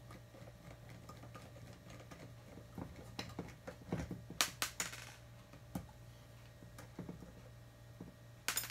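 Small metallic clicks and clinks of a screwdriver and screws against an Onity HT24 lock's metal housing as the screws holding its clutch are backed out, with a cluster of louder clinks about four to five seconds in and one sharp clink near the end.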